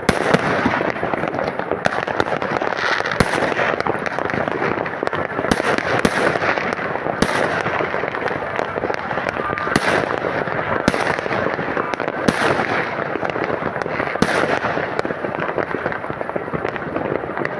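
Fireworks and firecrackers going off: a dense, unbroken crackle with sharp bangs about once a second.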